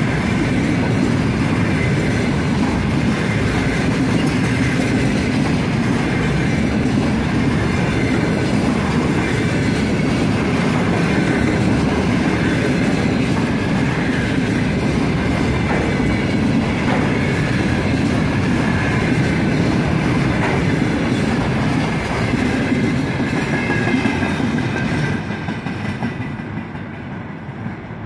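Container flatcars of a freight train rolling past at speed, a steady loud rumble and clatter of steel wheels on the rails with a faint wavering squeal. The sound fades away about 25 seconds in as the last cars go by.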